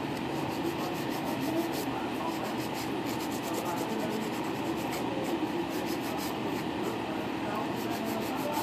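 A nail file rubbed rapidly back and forth over acrylic nails, about four or five strokes a second.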